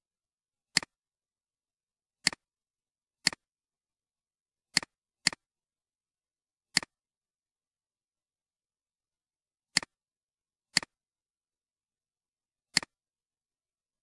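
Computer mouse button clicking: nine sharp, unevenly spaced clicks, each a quick double tick of press and release.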